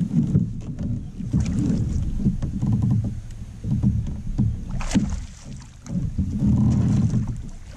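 Wind rumbling in gusts on the microphone, with water splashing against a fishing kayak's hull and scattered small knocks; one sharp click stands out about five seconds in.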